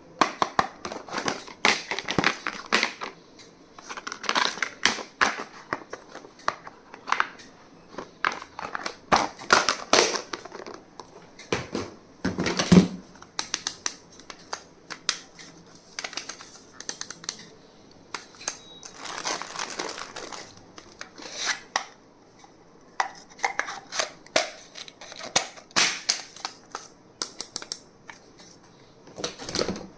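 Stationery items being handled and unpacked by hand: irregular clicks and taps of small plastic and paper items, with short stretches of packaging rustle.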